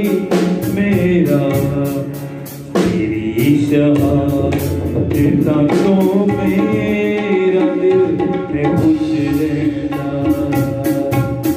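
Live worship song: tabla and a drum kit keep a steady beat under sustained melodic notes, with some male singing. The music thins briefly about two and a half seconds in, then comes back in full.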